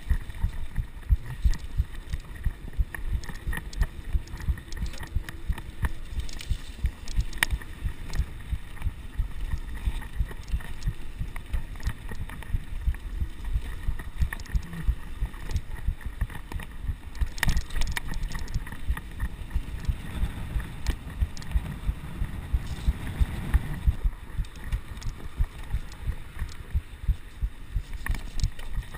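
Mountain bike riding over a bumpy dirt and gravel trail, heard from a chest-mounted action camera: a constant low rumble of tyres and wind with frequent knocks and rattles as the bike jolts over the ground.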